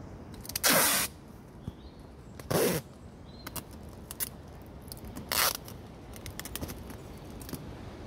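Packing tape pulled off the roll in three loud rips, about half a second, two and a half seconds and five seconds in, as a cardboard box is taped shut. Faint rustling and small taps of hands on the cardboard come between the rips.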